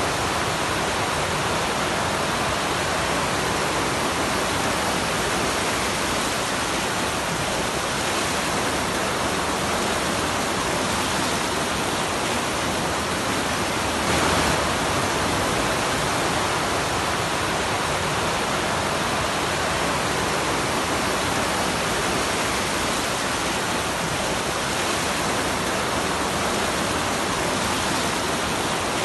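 Rushing floodwater: a steady, even hiss, briefly louder about halfway through.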